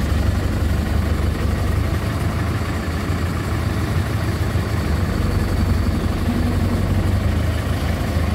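Vehicle engine idling with a steady low hum, heard from inside the cabin while creeping in slow traffic.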